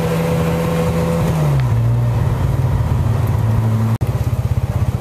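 Car engine running while driving, heard from inside the cabin. The steady engine hum drops in pitch about a second and a half in, and after a brief dropout near the end it gives way to a rougher, pulsing rumble.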